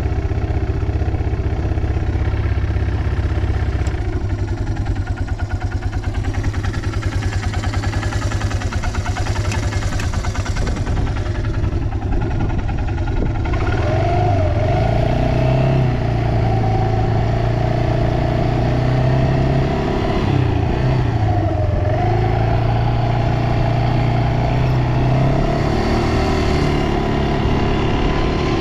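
Yamaha Breeze 125 ATV's four-stroke single-cylinder engine running, first at a low idle and then, about halfway through, revved up and held at higher revs with a brief dip. It runs without abnormal noises, as the seller states.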